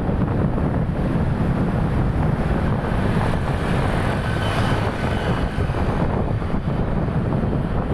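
Wind buffeting the microphone over the steady rumble of a vehicle moving through city traffic, with a faint high tone about halfway through.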